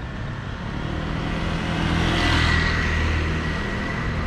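A motor vehicle passing close by on the street, its engine and tyre noise swelling to a peak about two seconds in and then easing off.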